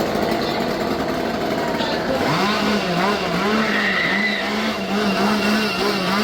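Gasoline chainsaw engine running, then revved again and again in quick blips from about two seconds in, the pitch rising and falling with each rev.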